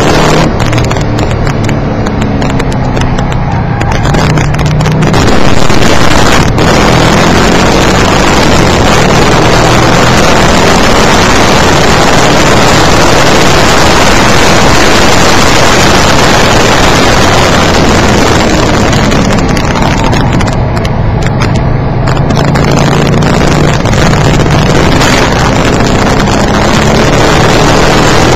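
A car engine under hard track driving, heard from inside the cabin through an oversensitive microphone, so loud that it distorts. A clear engine note comes through near the start and again about two-thirds in; in between it is a dense, steady rush of engine and road noise.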